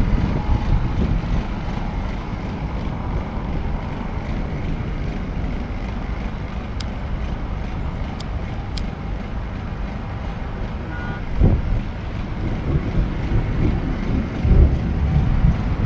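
Wind buffeting the microphone as a steady low rumble, swelling in a few stronger gusts over the last few seconds.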